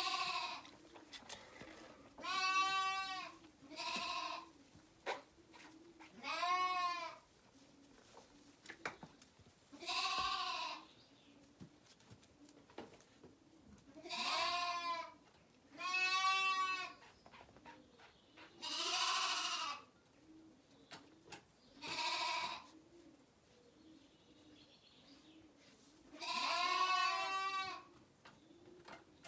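Zwartbles lambs bleating at bottle-feeding time: about ten loud, quavering calls, each under a second and spaced a couple of seconds apart.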